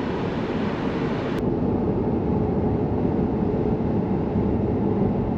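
Steady road and engine noise inside a moving car. About a second and a half in, the hiss abruptly turns duller.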